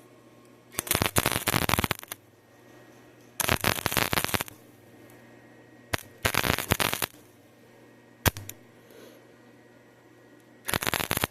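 Electric arc welder crackling and sputtering in short bursts of about a second each, four of them with a pause between and two brief strikes in the gaps: stop-start welding on thin steel pipe.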